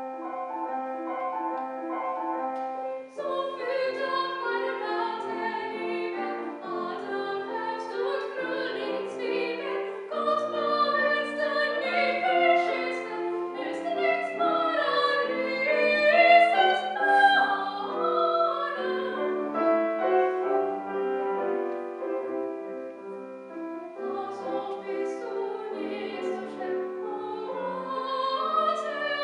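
A Steinway grand piano plays alone for about three seconds, then a female classical soprano comes in and sings an art-song line with vibrato over the piano accompaniment.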